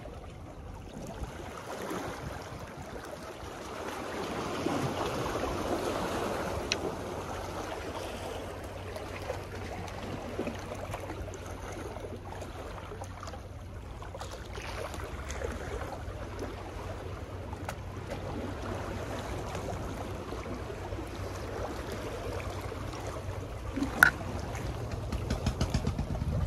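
Sea water washing against a seawall, rising and falling, over a steady low hum, with one sharp click near the end.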